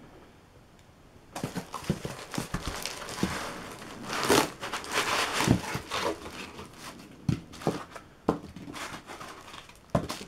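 Plastic bag crinkling, with cardboard and foam packing rustling and knocking, as a bagged box is lifted out of a cardboard shipping carton. It starts about a second and a half in and is loudest about four to five seconds in.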